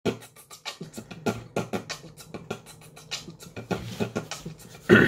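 A man beatboxing into cupped hands: a steady beat of mouth-made kick, snare and hi-hat sounds, about three to four strokes a second, with one louder hit near the end.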